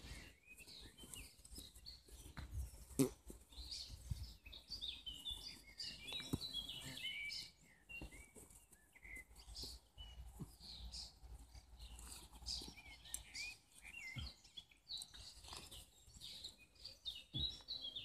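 Small birds chirping and singing throughout, with a few scattered sharp knocks, the loudest about three seconds in.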